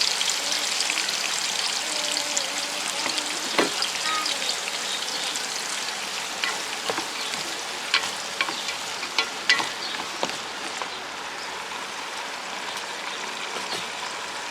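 Onions frying in hot oil in a pan, a steady sizzle that slowly dies down. A stirring utensil clicks against the pan several times in the middle.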